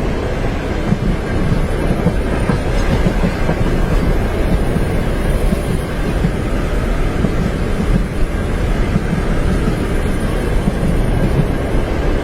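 A passenger train running steadily on rails, heard from inside the carriage: a continuous low rumble with the clatter of the wheels over the track.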